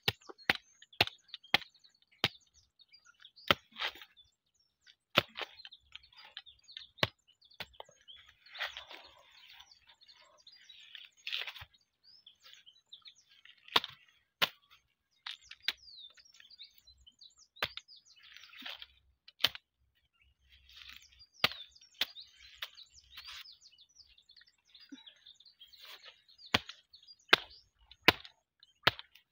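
Machete chopping a banana stalk into pieces: sharp chops at uneven intervals, coming in quick runs near the start and near the end, with birds chirping in between.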